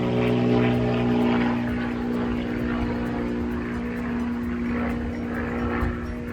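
An engine running steadily, a continuous hum that changes pitch about a second in.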